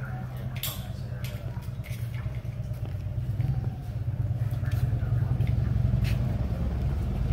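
A vehicle engine idling, a steady low rumble that grows louder in the second half. A few sharp metallic clicks from the rope hardware being handled sit on top.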